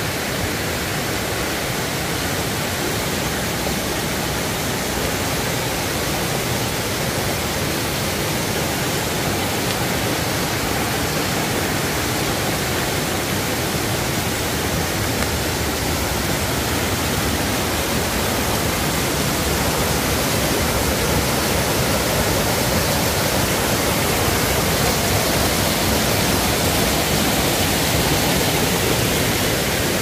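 Mountain stream rushing over rocks and a small weir in little cascades: a steady hiss of running water that grows a little louder in the last third.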